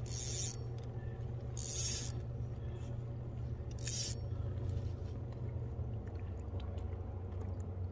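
Electric trolling motor on a small inflatable boat running with a steady low hum that drops slightly in pitch about six seconds in. Three short hissing bursts come at the start, about two seconds in and about four seconds in.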